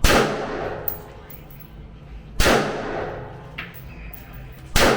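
Three gunshots from a firearm at a shooting range, evenly spaced about two and a half seconds apart. Each shot ends in a long ringing echo, and faint small clicks fall between the shots.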